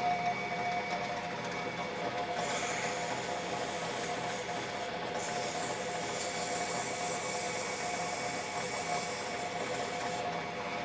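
Glen metal lathe running with a steady whine while a hand-held abrasive strip is rubbed against the small spinning shaft. The rubbing noise sets in about two seconds in, breaks off briefly about five seconds in, and stops shortly before the end.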